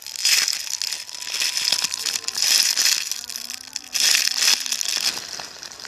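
Plastic crinkling and rustling in three bursts of about a second each, as something wrapped in plastic is handled.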